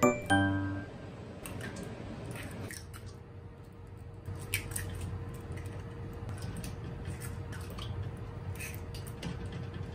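Eggs cracked one after another over a stainless steel bowl. Sharp shell cracks, often in quick pairs, come every second or two, each followed by the wet plop of the egg into the bowl.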